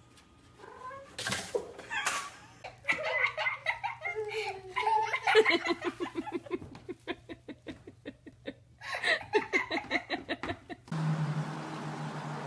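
A person laughing hard in several fits of quick, even ha-ha pulses. About eleven seconds in the laughter stops abruptly and a steady low hum takes over.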